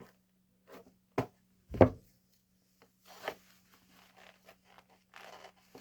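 Knife being worked into and out of a tight new leather sheath: two sharp knocks about a second in, then a soft scraping of the blade against the leather.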